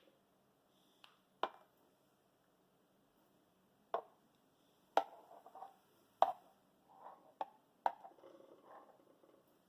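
About six sharp knocks and clinks, spread unevenly, with soft clattering between them: a milk jug and cups being handled and set down on a worktop while the steamed milk is poured.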